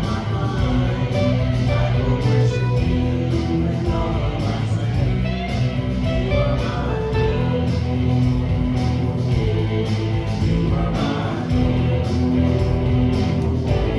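Worship music led by strummed guitar, with a steady beat and some singing.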